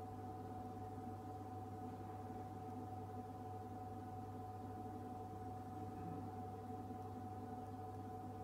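Refrigerated drinks vending machine running: a steady hum with a clear pitched tone held above it, unchanging throughout.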